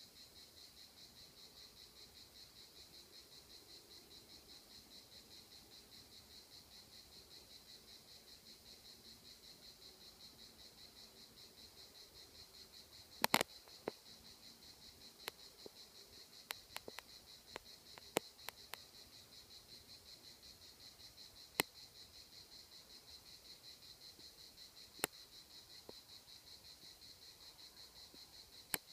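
Insects buzzing in a steady, fast-pulsing rhythm, about five or six pulses a second, high-pitched. Scattered sharp clicks break in from about halfway through, a cluster of them in the middle and a few singles near the end.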